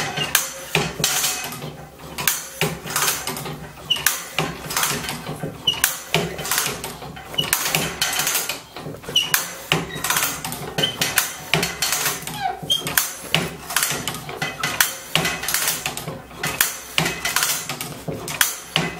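Lever-operated band saw blade setting machine (AST-RWN) at work, its mechanism giving a fast, continuous series of metallic clicks and clanks as the handle is stroked and the blade is set two teeth at a time and indexed along.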